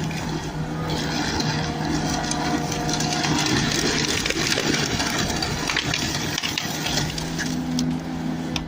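Ponsse Ergo forestry harvester's diesel engine running steadily, with dense rattling and clicking from the machine at work.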